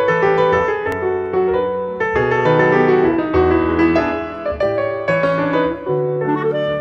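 Background piano music, chords moving over a bass line.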